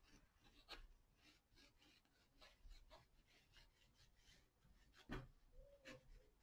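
Faint scratchy strokes of a white oil pastel drawn across watercolour paper in short, irregular marks, the most distinct about five seconds in.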